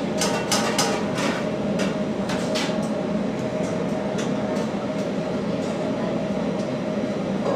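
Steady low rumbling background noise, with a few sharp clicks in the first three seconds as marinated paneer cubes are pushed onto a metal skewer.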